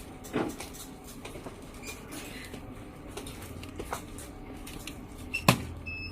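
Soft clicks and taps from handling a semi-auto biochemistry analyzer, with one sharp click about five and a half seconds in. Near the end the analyzer gives two short high beeps.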